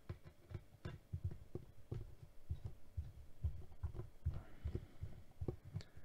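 Small precision screwdriver working the tiny screws of a laptop's metal SSD shield plate: faint, irregular soft knocks and small clicks, about two to four a second.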